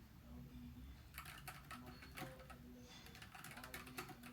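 Typing on a NuPhy Air75 low-profile mechanical keyboard with linear red switches: soft, quick keystroke clicks in two bursts, with a pause during the first second and another just after the middle.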